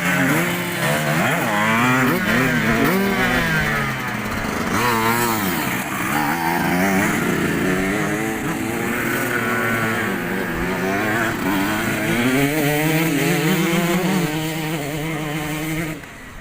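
Several motocross bikes running together on a dirt circuit, their engines rising and falling in pitch as the riders rev and shift. The sound drops suddenly near the end.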